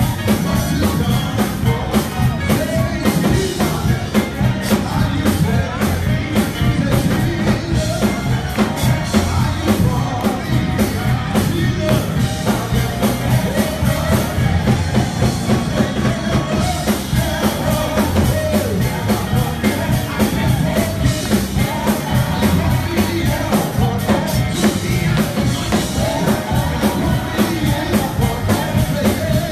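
Live church worship music: a man and other singers sing on microphones over a band with a steady beat.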